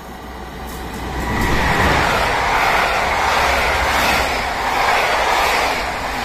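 Electric-hauled Intercity passenger train running through the station at speed. The locomotive closes in and passes in the first couple of seconds, and the noise rises to full loudness. Then the coaches' wheels rumble by, the noise swelling and easing again and again as coaches pass.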